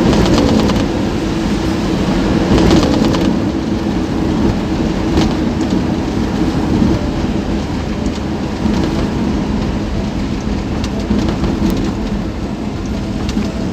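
Steady, loud rumble and hiss of a vehicle on the move in city traffic, with a few short clicks and knocks over it.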